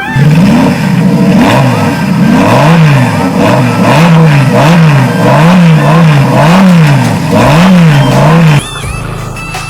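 A vehicle engine is revved up and down over and over in quick blips, about twice a second, and cuts off sharply near the end.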